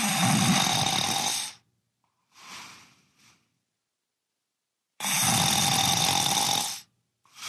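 A man snoring heavily in his sleep: two loud, rasping snores about four seconds apart, each followed by a shorter, quieter breath.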